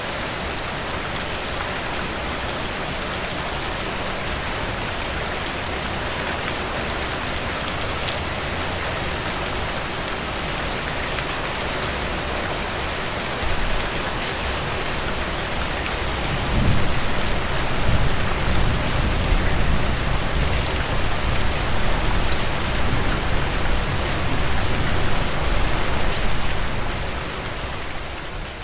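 Steady rain falling, a dense even hiss with individual drops ticking through it. Past the middle a deep low rumble comes in and makes it louder, easing off near the end.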